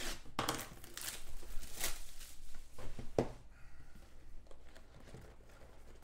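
Plastic wrap being torn and crinkled off a cardboard trading-card box: several sharp crackles over the first three seconds, then quieter handling of the box as its lid is worked open.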